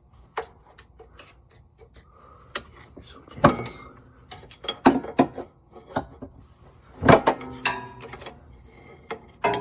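Metal hand tools clinking and scraping against a 4L60E transmission's servo cover and snap ring while the snap ring is being worked out. There are scattered clicks and several sharp metallic clanks that ring briefly, the loudest about three and a half and seven seconds in.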